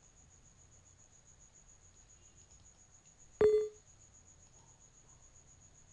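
A single short electronic beep about three and a half seconds in, a sharp start followed by a clear tone lasting about a third of a second. Under it runs a faint, evenly pulsing high-pitched tone over low background hiss.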